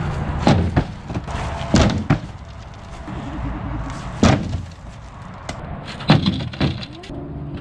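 A rock and a log section thrown hard against a polycarbonate windshield panel in a wooden frame: a series of heavy thuds, several in quick pairs as the object strikes and then lands.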